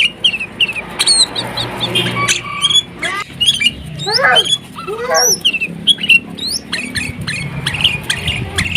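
Sooty-headed bulbul (kutilang) in full song, chattering: a rapid run of short, sharp chirps and whistled notes, many sweeping up and down in pitch.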